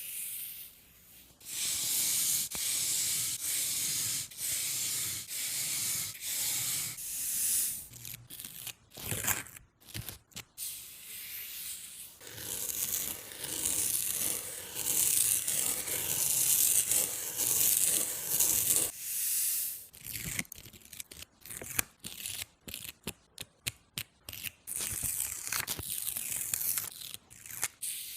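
Dry scraping and rustling of material being rubbed. It comes as a run of strokes for the first several seconds, goes on unbroken for a long stretch in the middle, and breaks into many short scrapes near the end.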